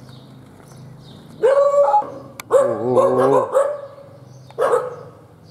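A dog barking in loud bouts starting about a second and a half in; one bark in the middle is drawn out and wavering.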